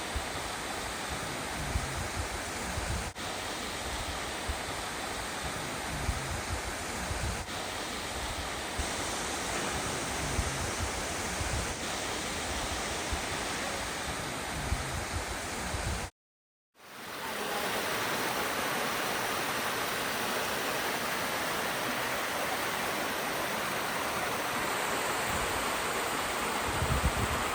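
Rushing water of a waterfall, a steady hiss, with low irregular rumbles in the first half. The sound drops out completely for about half a second some sixteen seconds in, then the water resumes a little louder and steadier.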